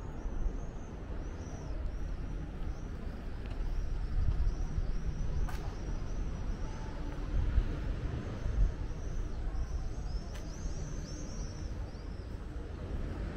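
Outdoor town ambience: a steady low rumble, with runs of quick high-pitched chirps in the first few seconds and again near the end, and two sharp clicks in between.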